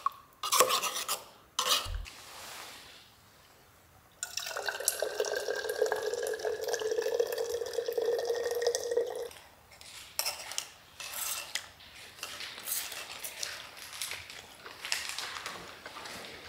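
A metal spoon clinks and scrapes in a small metal camping cup. About four seconds in, water runs from an insulated water cooler's tap into a bottle for about five seconds, its pitch rising slowly as the bottle fills. Scattered spoon clinks and scrapes follow.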